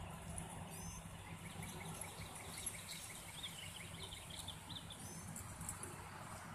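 Outdoor ambience with a steady low background hum. Through the middle, a bird chirps a quick run of short, high notes.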